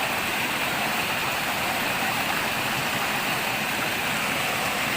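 Waterfall rushing: an even, steady hiss of falling water.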